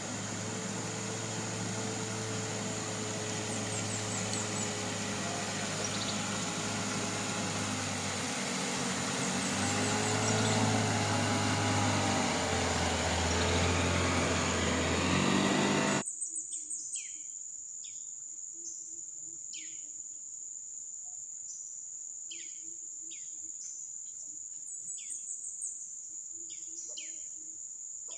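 Outboard motor of a passing small boat running, shifting in pitch and growing louder as it comes near, then cut off abruptly about sixteen seconds in. After that a steady high insect drone, with repeated short descending chirps.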